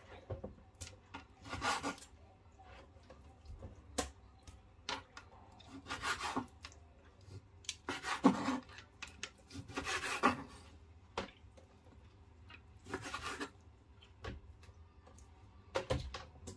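Chef's knife cutting beef tripe on a wooden cutting board: irregular knocks of the blade on the board, with a handful of longer slicing scrapes.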